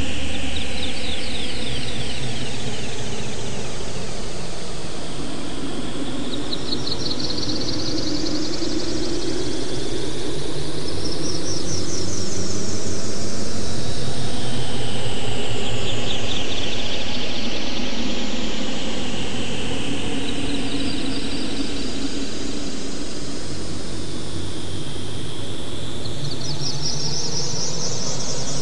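Synthesized electronic drone made in SuperCollider: layered tones that sweep slowly up and down in pitch over several seconds, above a steady low hum.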